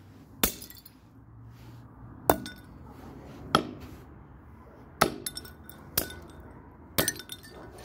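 A plastic toy Calor iron slammed repeatedly onto a concrete pavement: six sharp cracking knocks with a short clinking ring, about a second or two apart.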